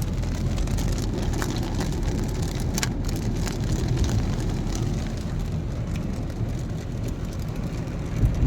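Heavy rain falling on a car, heard from inside the cabin over the steady low rumble of the car in slow traffic, with a few sharper drop ticks in the first few seconds.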